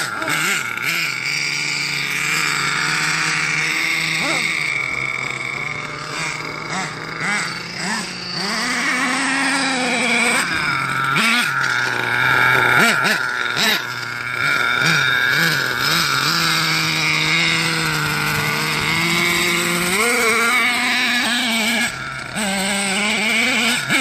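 Small nitro engine of an HPI Savage XL RC monster truck running under load as the truck drives, its pitch rising and falling with the throttle.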